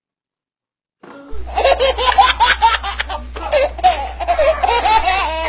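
About a second of silence, then a loud, high-pitched burst of laughter in rapid ha-ha pulses that runs on, with a steady low hum underneath.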